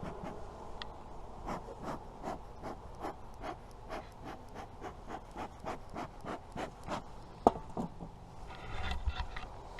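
Honeybees humming at an open hive. Over the hum comes a regular run of short scratching strokes, about two or three a second, with a single sharp knock near the end.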